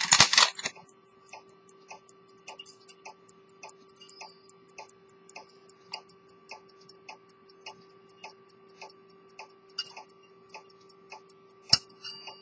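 A circa-1900 Swiss pocket watch movement ticking evenly, heard close up. A loud handling rustle comes right at the start and one sharp click near the end, over a steady low hum.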